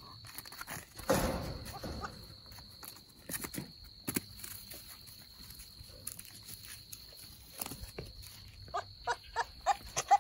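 Goat kids scuffling and stepping about, with a thump about a second in and a few light knocks after it. A steady high-pitched insect drone runs underneath. Near the end comes a quick run of short chirping calls, several a second.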